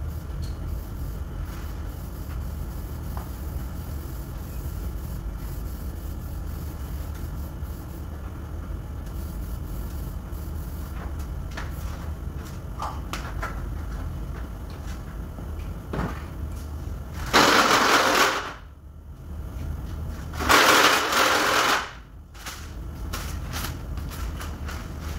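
Two loud bursts of hissing noise, each about a second long and a couple of seconds apart, over a steady low hum with scattered light clicks and knocks.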